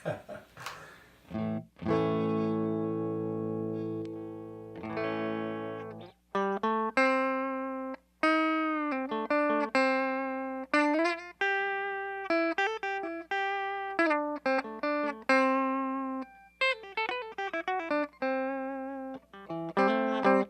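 Electric guitar played clean through a Fender Blues Junior III tube amp with its stock Jensen speaker. It opens with a few short hits and a held, ringing chord, then moves into a run of single notes and double-stops, each left to ring out.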